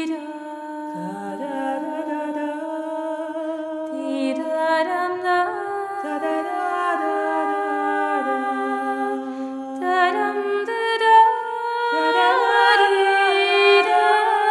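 Wordless a cappella vocal music: several voices humming and singing long held notes that overlap at different pitches and glide slowly from note to note.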